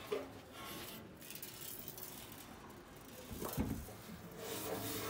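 Handling noise as a steel motorcycle fuel tank is moved about by hand on a cloth: rustling, a light clink just after the start and a dull thump about three and a half seconds in.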